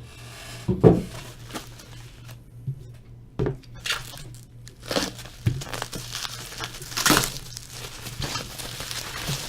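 Trading card box and pack wrappers being handled and opened: plastic and foil crinkling and tearing in irregular rustles, with a few sharp knocks, the loudest about a second in.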